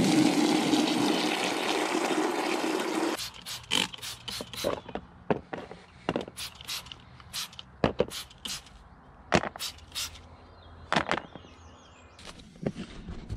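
Water from a garden-hose spray nozzle running into a small plastic container for about three seconds, then cutting off suddenly. After that come a string of quick squirts from a trigger spray bottle, mixed with light clicks and knocks of plastic parts being handled.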